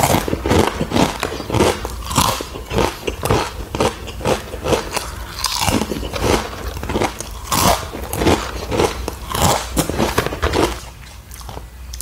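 Close-miked crunching and chewing of crispy criss-cut fries, bite after bite, easing off near the end.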